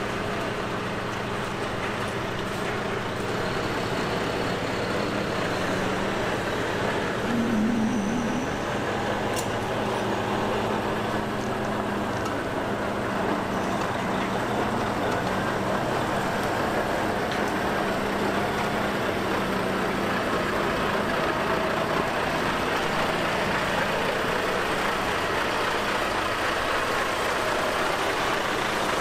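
Volvo three-axle tipper truck's diesel engine running steadily as the truck drives up and past.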